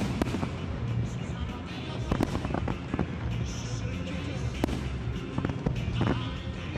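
Fireworks display firing to music: repeated bangs and crackles from aerial shells and cakes, irregular and overlapping, over music playing underneath.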